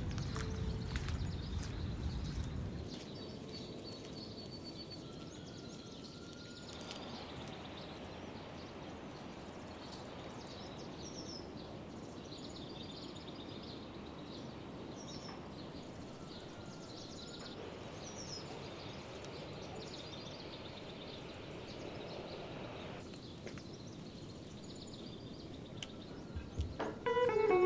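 Outdoor ambience: a steady even hiss with short bird chirps scattered through it, and a low rumble that drops away after the first few seconds.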